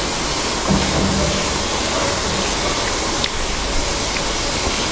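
Steady rushing noise, even and unbroken, with no clear tone or rhythm.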